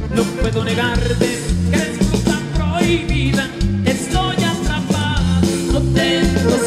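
Norteño band music with a button accordion playing the lead over bass and a steady beat.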